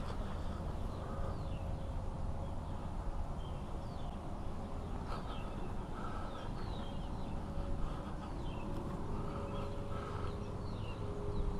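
Wild birds calling with many short, falling chirps scattered throughout, over a steady low outdoor rumble.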